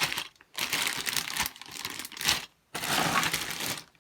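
Packaging crinkling and rustling as it is handled, in uneven spells broken by two short pauses.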